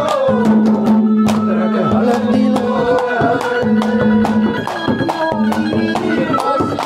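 Instrumental interlude of Haryanvi ragni folk music: a held melody line and a steady low tone over frequent hand-drum strokes.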